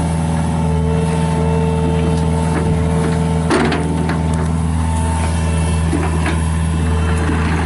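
John Deere 50G mini excavator's diesel engine running steadily, with a single sharp knock about three and a half seconds in.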